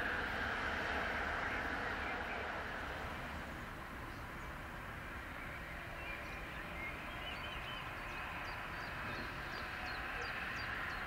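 Distant train and road traffic noise, easing off over the first few seconds and then holding steady. In the second half a small bird chirps in a quick run of short high notes.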